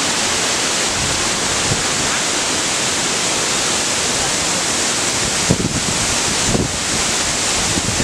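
Steady roar of a waterfall's falling water close by. Brief low buffets on the microphone come about five and a half and six and a half seconds in.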